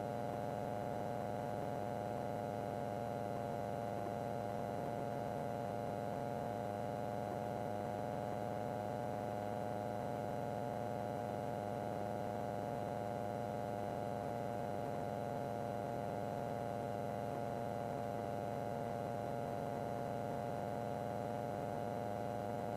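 Steady faint hum with several held tones, heard through a light aircraft's cockpit intercom and radio audio feed with no one talking.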